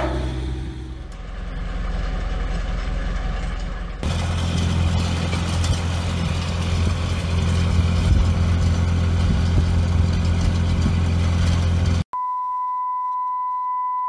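A low, steady machine drone, which gets stronger about four seconds in and runs evenly. About twelve seconds in it cuts off abruptly and a steady, pure test-pattern beep tone begins.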